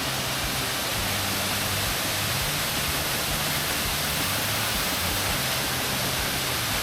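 A waterfall rushing steadily, an even hiss of falling water.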